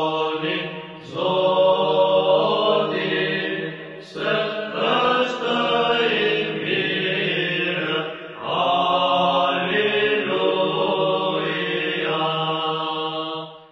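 Orthodox church chant: voices singing a melody in phrases over a steady held low drone note, with short pauses between phrases about a second, four seconds and eight seconds in.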